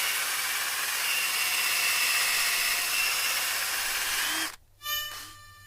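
Power drill running steadily with a high whine, stopping abruptly about four and a half seconds in.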